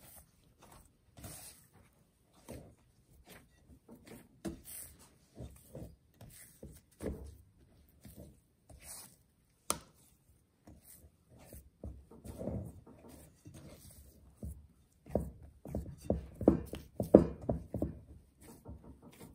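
Hands kneading lavash bread dough in a glass bowl: irregular soft squishing and slaps of the dough, growing louder and quicker in the last few seconds, with one sharp click about ten seconds in.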